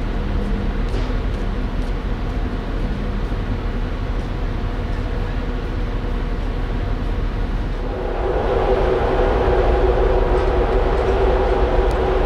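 Steady hum and rumble of a ferry's onboard machinery heard on deck, with a few steady tones held above it. About eight seconds in it gets louder and the tones grow stronger.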